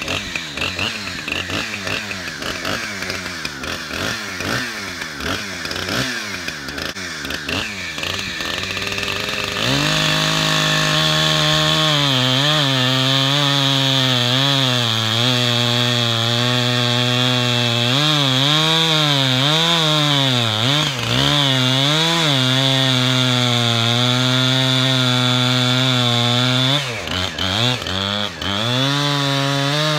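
Husqvarna 455 Rancher 55 cc two-stroke chainsaw with a 24-inch bar and skip-tooth chain idling, then going to full throttle about ten seconds in and cutting through a two-foot log. Its pitch sags and recovers as the chain loads in the wood, with a couple of deeper dips near the end.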